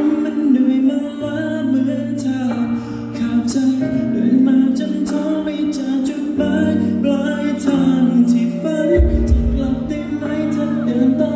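Pop song playing over a concert sound system: a sung vocal line over sustained chords, with a heavy deep bass coming in near the end.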